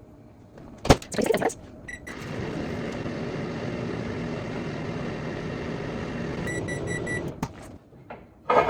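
Microwave oven: the door shuts with a knock, a short keypad beep follows, and the oven runs with a steady hum for about five seconds. A quick string of beeps then signals the end of the heating cycle, and the door latch clicks open just after.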